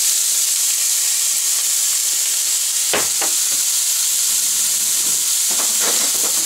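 Diced onion sizzling in hot oil in a cast-iron skillet, a steady hiss with a few short crackles about three seconds in and again near the end, as the onion sweats in the oil.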